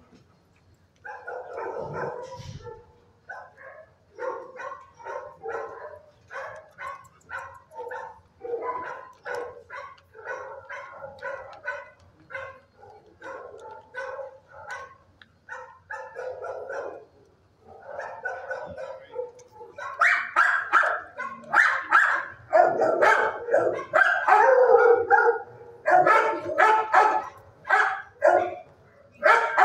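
Shelter dogs barking in the kennels: a continuous run of barks, growing louder from about twenty seconds in.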